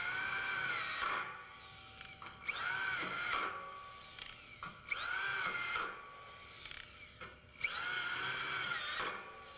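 Corded power drill driving #12 × 1 inch self-drilling Tek screws into a steel base rail joint: four short runs of motor whine, each rising in pitch as the drill spins up and falling away as it stops.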